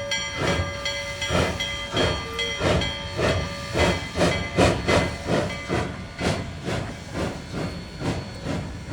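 2-8-0 steam locomotive pulling away, its exhaust chuffs coming steadily faster, over a continuous hiss of steam.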